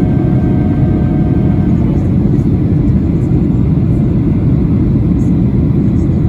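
Steady in-flight cabin roar of a Boeing 737-800 during descent, from its CFM56-7B engines and the airflow over the fuselage, heaviest in the low end. A faint whine under the roar fades out a little under two seconds in.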